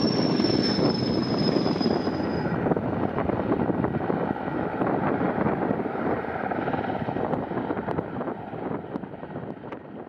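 Sikorsky S-64E Air-Crane heavy-lift helicopter hovering while it refills through its snorkel hose: a loud, dense rush of rotor noise, with a thin high turbine whine that sinks slightly and drops out about two and a half seconds in. The noise eases off toward the end.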